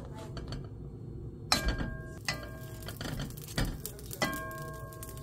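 Wooden spatula knocking against a deep non-stick frying pan while bread rolls are turned over, about five knocks, each with a short metallic ring. A steady low hum runs underneath.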